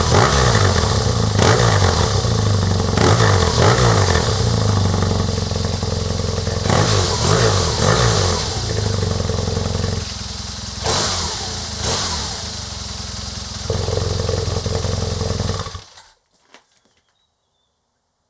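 BMW R nineT's 1170 cc boxer twin, its exhaust flap valve held open on the loud setting, revved up and down again and again, then running steadier at idle. The sound cuts off abruptly near the end, leaving near silence.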